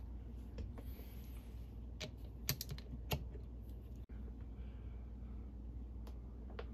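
Scattered light clicks and taps of hand tools on a partly stripped outboard engine block, two sharper ones about two and a half and three seconds in, over a low steady hum.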